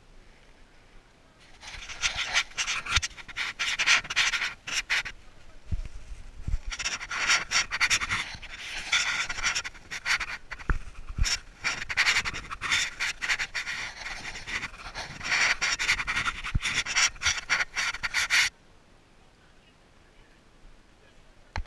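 Close rubbing and scraping against the camera and microphone, with many small knocks and crackles. The noise starts about a second and a half in and cuts off suddenly near the end.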